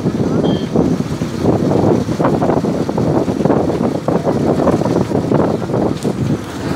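Wind buffeting the microphone from a moving vehicle, a gusty, uneven rush over the vehicle's running and road noise.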